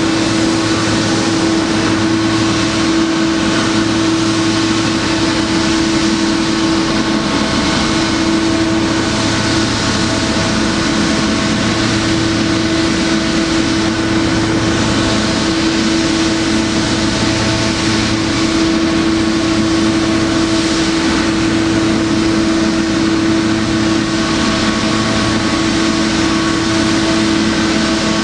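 Boeing 777-200's twin turbofan engines running at idle: a loud, steady jet engine noise with a constant low tone and a slow, even pulsing underneath.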